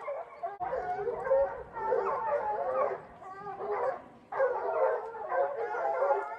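Several hounds baying and howling at once, their voices overlapping, as they run a mountain lion. The cry dips twice in the middle.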